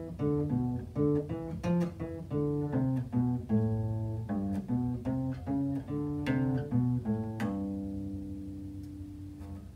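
Acoustic guitar playing a boogie riff in G, picked low notes in a steady repeating pattern. It ends on a final chord about seven and a half seconds in that rings out and fades away.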